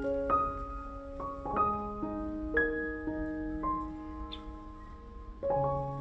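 Background music: slow, gentle solo piano, single notes struck about every half second and left to ring, with a deeper chord near the end.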